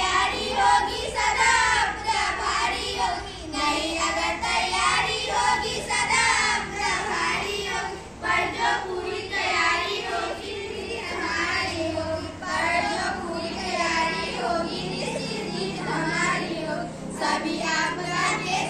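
A group of schoolgirls singing a song together.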